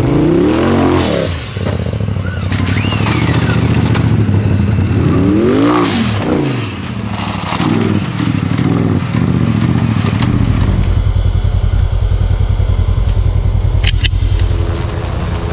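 Off-road vehicle engine revving hard several times, its pitch climbing and falling with each burst, then settling to a steady, pulsing idle about two-thirds of the way through.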